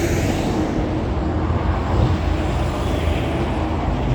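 Steady road traffic noise: the continuous rumble and hiss of cars passing on the highway.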